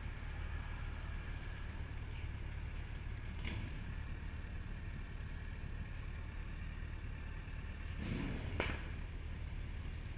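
Yamaha FJR1300's inline-four engine idling steadily with the bike at a standstill. Two short clicks break in, one about three and a half seconds in and a slightly louder one after about eight and a half seconds.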